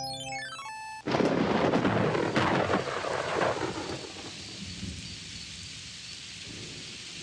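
A quick falling run of musical notes, then a thunderclap about a second in that rumbles for a few seconds and gives way to steady heavy rain: a thunderstorm sound effect.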